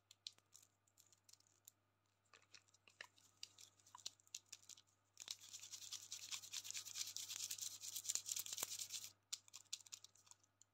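Wrapped Chupa Chups lollipops handled in the fingers, their plastic wrappers crinkling: scattered small crackles at first, then a dense crinkling for about four seconds from about five seconds in, which stops suddenly.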